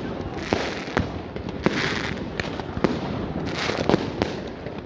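Fireworks going off: a run of sharp bangs and pops, roughly two a second, over the crackling of glittering bursts.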